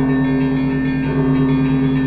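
Orthodox church bells ringing: a deep bell's long hum throbs steadily beneath the overlapping ring of other bells, and another bell is struck about a second in.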